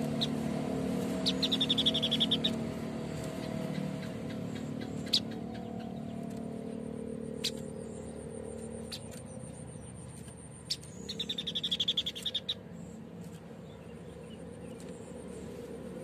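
White-breasted babbler giving two short, rapid, high trills about nine seconds apart, each roughly a second long, with a few sharp clicks between them and a low rumble in the background.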